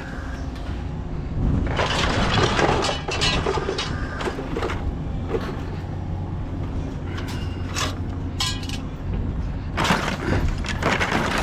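Pieces of scrap metal clanking and clattering as they are handled and tossed onto a pile, with louder bursts of clatter about two seconds in and near the end, over a steady low rumble.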